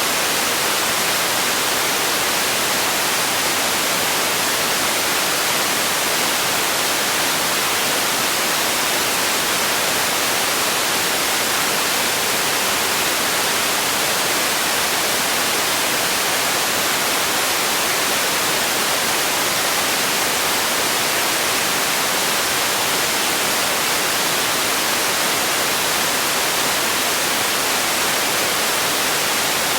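Steady, unchanging white noise: an even hiss strongest in the highs.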